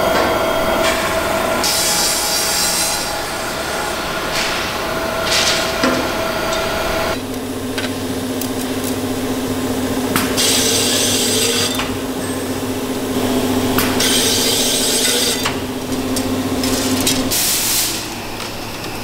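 Sanding machines grinding carbon-fibre fishing rod blanks: a steady machine hum with repeated rasping hiss each time a blank is drawn through. About seven seconds in, the hum drops to a lower pitch as a second machine takes over.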